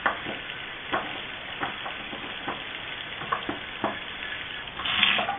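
Water from a Delta sink faucet running at low flow, hissing and spattering into the sink, with scattered small clicks and a louder rush of water about five seconds in. This is the test run after a new O-ring and seal were fitted to stop a leak.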